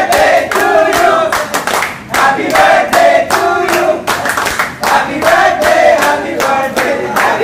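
Group of men singing together while clapping their hands in a steady rhythm, about two to three claps a second.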